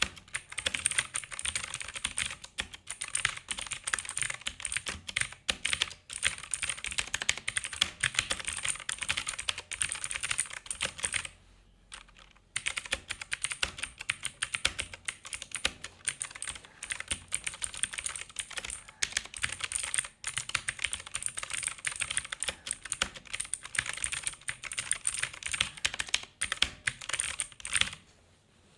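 Zebronics Zeb Max Pro V2 mechanical keyboard with blue switches being typed on quickly, a dense stream of sharp clicks. The typing stops for about a second roughly eleven seconds in, then again just before the end.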